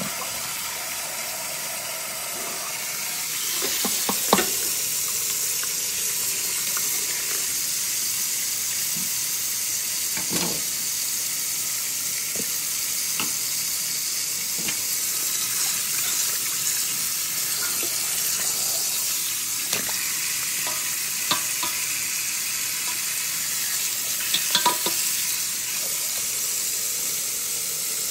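Kitchen tap water running steadily onto whole tilapia in a bowl in the sink, a constant hiss. A few short knocks and clicks are heard, the sharpest about four seconds in.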